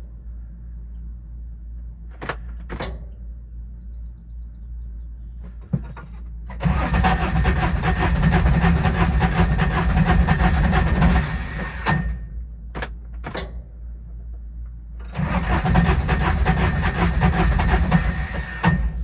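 Diesel UTV engine being cranked by its starter in two long attempts, about five and four seconds, with short clicks in the pauses between. This is a hard start, which the owner puts down to glow plugs that he suspects are not working properly.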